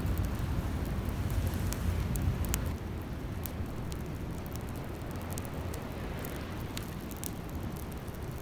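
Wood campfire crackling with scattered sharp pops over a steady rush of surf. A heavy low rumble drops away about a third of the way in.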